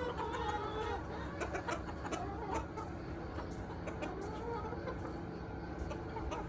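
A flock of backyard chickens clucking and calling, with wavering pitched calls in the first few seconds.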